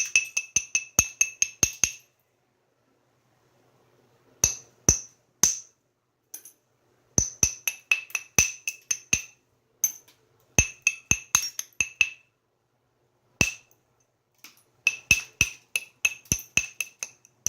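Hammerstone tapping a stone core in quick runs of light strikes, about four or five a second, each a sharp click with a short glassy ring, with pauses between runs: small strikes that prepare and isolate striking platforms before a flake is taken.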